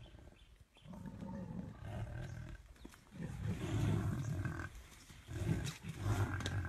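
Lionesses growling in three rough, low bursts while fighting a Cape buffalo.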